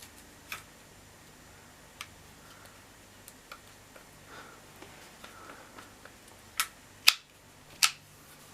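Sharp clicks and knocks from a hard-plastic cordless multi-tool being handled, a few faint ones and then three louder ones near the end.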